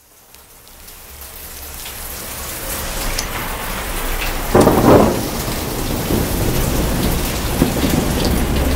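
Steady rain, fading in over the first few seconds, with a short rumble of thunder about four and a half seconds in.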